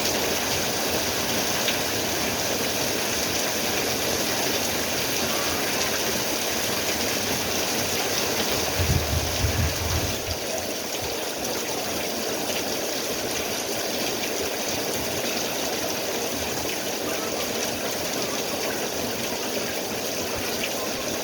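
Steady heavy rain falling, an even rushing hiss, with a brief low rumble about nine seconds in.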